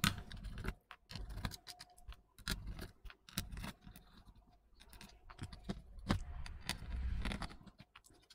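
Small screws being taken out of a Bluetooth speaker's circuit board with a hand screwdriver: irregular light clicks and scrapes of the bit and screws.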